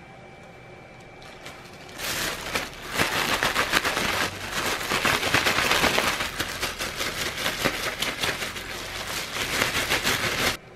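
A thin plastic bag crinkling and rustling hard as chicken pieces are shaken inside it with a powdery coating. The shaking starts about two seconds in and cuts off suddenly near the end.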